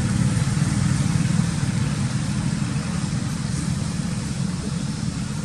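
Steady low rumble, easing off slightly toward the end.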